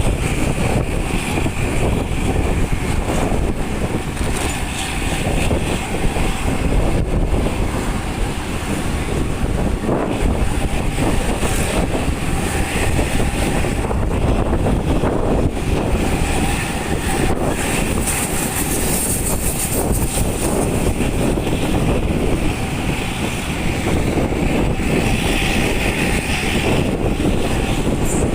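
Hino RK bus's diesel engine running steadily through a loud aftermarket exhaust, a deep, dense rumble heard from close behind the bus.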